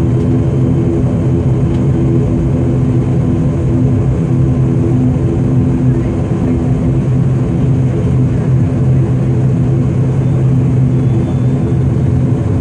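Turboprop engines and propellers of an ATR 72-500 heard from inside the cabin while taxiing: a steady drone made of a low hum and several steady tones, unchanging throughout.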